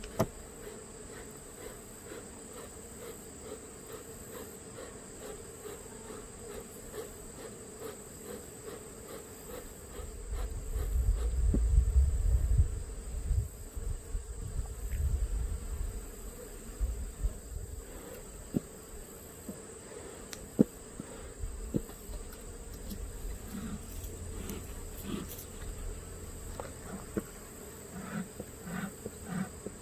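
Honey bees buzzing around an open Langstroth hive, a steady hum throughout. A low rumble swells from about ten to sixteen seconds in, and scattered sharp clicks follow in the second half.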